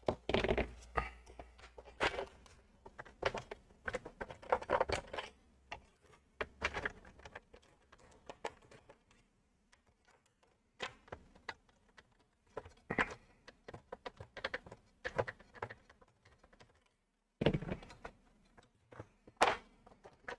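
Irregular clicks, taps and small knocks of hard plastic as the knitting machine's plastic housing is handled and its bottom screws are undone, with a quieter lull partway through.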